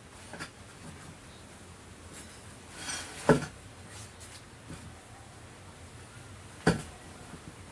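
Rubber inner tube and small tyre being handled and pushed together: a short rubbery rustle, then two sharp knocks about three seconds apart.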